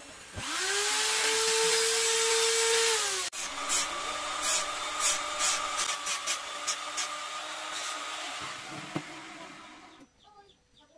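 Handheld electric drill starting, rising quickly to full speed and running steadily on kemuning wood for about three seconds, then cut off sharply. A power tool fitted with a sanding disc then runs and grinds against the wood in many short strokes, fading out near the end.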